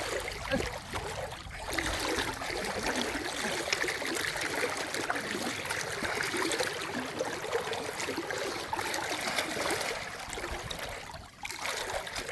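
Flowing river water, a steady rush of current with a brief dip near the end.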